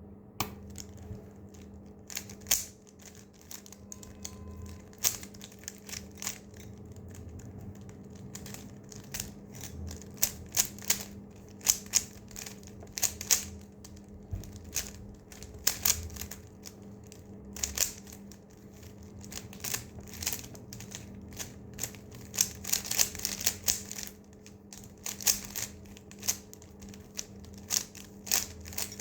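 Rubik's cube being turned rapidly in a speed-solve: irregular quick plastic clicks and clacks of the layers rotating, some in fast runs, over a steady low hum.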